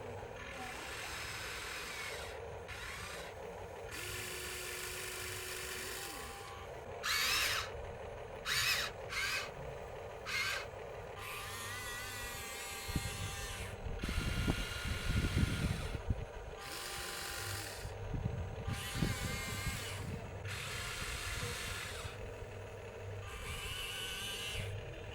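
Small electric motors of radio-controlled Huina construction models whining in short runs that start and stop every second or few, with a few short, louder, higher-pitched bursts partway through.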